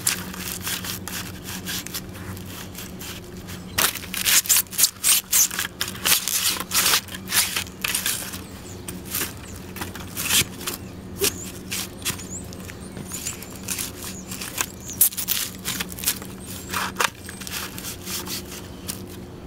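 Foam egg carton crunching and crackling as Florsheim Essex leather dress boots stomp on it, in bursts of sharp cracks with the soles scraping on concrete. The densest run of crunching comes about four seconds in, with scattered cracks after and a short cluster near the end.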